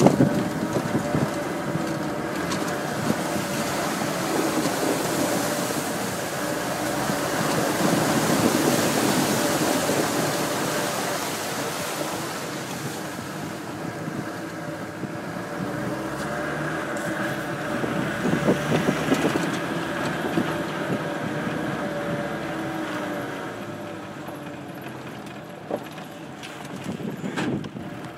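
Off-road vehicle engine running under load over a rough dirt track, its note rising and falling as the driver works the throttle. Wind rushes across the open top, with an occasional knock from the vehicle.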